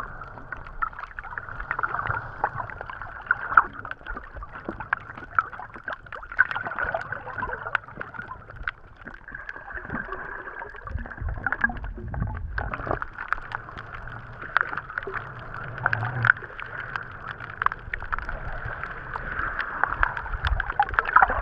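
Sea water heard underwater through a camera while snorkelling: a muffled sloshing and gurgling wash with many small clicks and crackles, and a low rumble that swells and fades.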